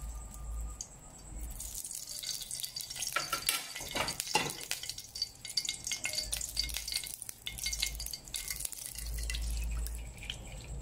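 Hot cooking oil, full of bits of seasoning, sizzling and crackling in a black cast-iron pot, starting about one and a half seconds in. A few light metal clinks from a pot lid or utensils sound along with it.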